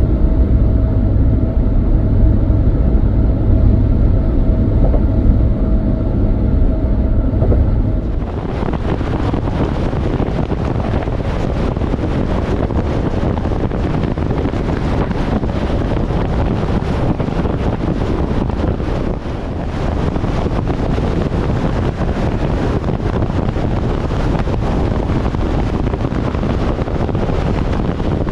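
A low, vehicle-like rumble with a steady hum. About eight seconds in, it switches abruptly to a steady, loud rushing noise.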